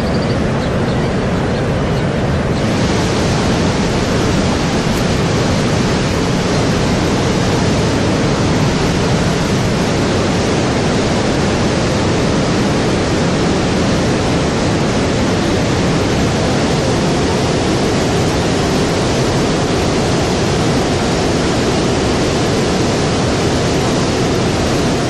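Waterfall rushing steadily, a loud, even wash of falling water; its hiss grows brighter about two and a half seconds in.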